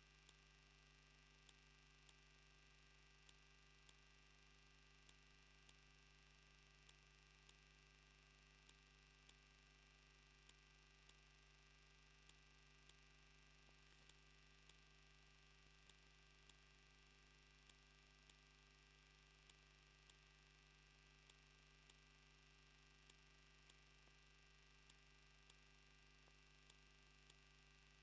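Near silence: a faint steady electrical hum with a high whine and faint ticks about once a second, the noise of a faulty livecam audio feed.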